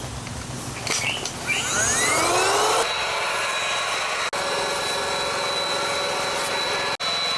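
Built-in battery-powered air mattress pump starting up: its motor whine rises in pitch for about a second, then runs steadily, blowing air into the mattress.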